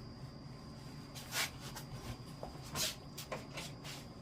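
Faint handling sounds as work on the motorcycle goes on: two short rustling swishes, about a second and a half and three seconds in, and a few light clicks.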